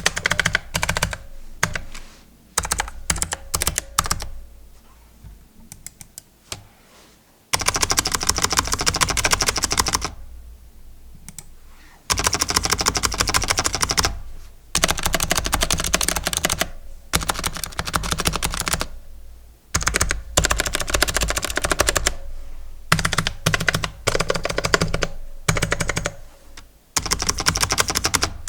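Typing on an AZIO Retro Classic mechanical keyboard, a hollow-sounding board with pingy switches: scattered single keystrokes at first, then fast runs of typing a few seconds long with short pauses between. Low thumps from the desk carry into the desk-mounted microphone.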